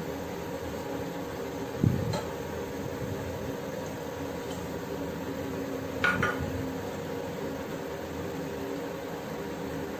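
A pot of pork broth at a steady boil, with kitchen utensils knocking against the pot: a sharp low knock about two seconds in and a ringing clink about six seconds in, as peeled taro chunks are tipped in from a glass bowl.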